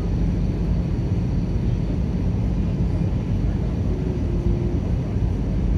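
Steady, deep airliner cabin noise: engine and airflow sound heard from inside the passenger cabin, with a faint hum running through the first half.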